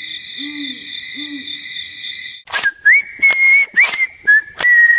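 Western-themed intro sound effects: two low hoots over a steady high ringing tone, then, from about halfway, a few sharp cracks and whistled notes that settle into one long held whistle.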